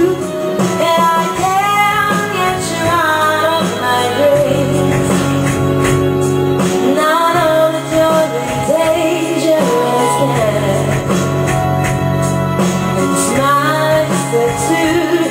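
Female vocals sung into a handheld microphone over backing music, amplified through loudspeakers.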